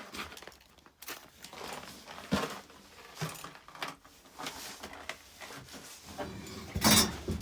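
Scattered rustling and light knocks of clothing and gear being handled in a small room, with one louder thump near the end.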